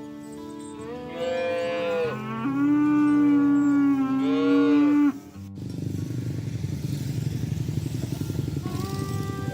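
Cow mooing in long, drawn-out calls over background music. About five and a half seconds in the sound cuts off suddenly and a low, rough rumbling noise follows, with music coming back near the end.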